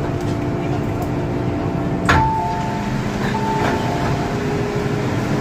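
MTR M-Train passenger doors opening at a station: a sharp clunk about two seconds in as the doors release, then the two-note high-low door chime sounding twice as they slide open, over the steady hum of the stopped train.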